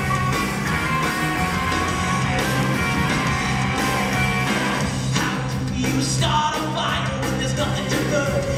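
Rock music from a stage musical played loud in a theatre, with a steady bass line; amplified singing from the cast comes in about halfway through.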